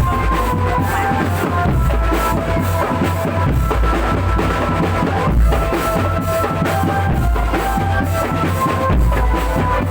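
Drum band music: a steady beat on bass drum and snare over a deep bass line and a melody.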